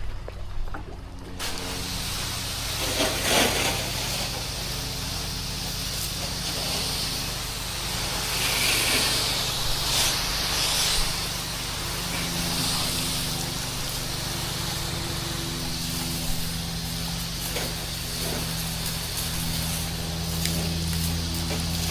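Pressure washer running: a steady engine hum, with water spray hissing from the wand that starts suddenly about a second and a half in and carries on.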